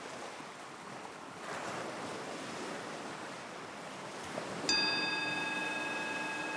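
Forest stream water flowing and trickling steadily. About two-thirds of the way in, a struck, bell-like tone with several overtones sets in suddenly and rings on.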